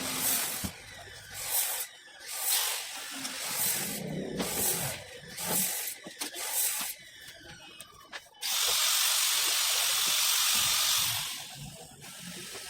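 Compressed air hissing in short repeated bursts, then one steady hiss lasting about three seconds that fades out near the end.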